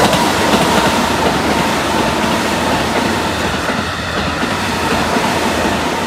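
Keikyu 600 series commuter train passing close by, a loud steady rush of wheels and running gear on the rails. A level-crossing warning bell rings steadily underneath.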